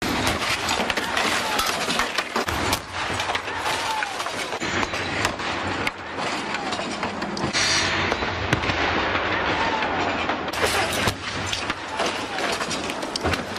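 Cars slamming into crash-test barriers at high speed: a constant rushing noise broken by several sharp bangs and crunching impacts.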